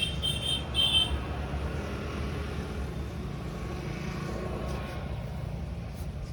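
Steady low rumble of roadside traffic, with three short high-pitched chirps in the first second.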